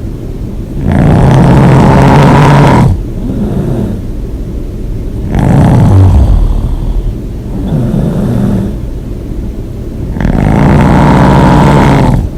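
Heavy open-mouthed snoring: three long, loud snores of about two seconds each, roughly four to five seconds apart, with quieter breaths between them.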